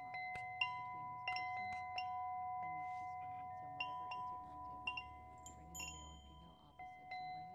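Metal chimes struck at uneven intervals, about every half second, each strike ringing on in long overlapping tones over a faint low drone.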